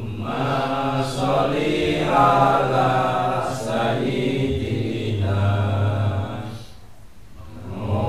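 Men's voices chanting a devotional Islamic litany (dhikr) together, with a short break for breath about seven seconds in.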